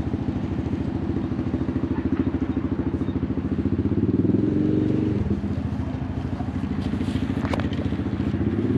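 A loud four-wheeler (ATV) engine running with an even pulsing beat, revving up briefly about four seconds in and settling back.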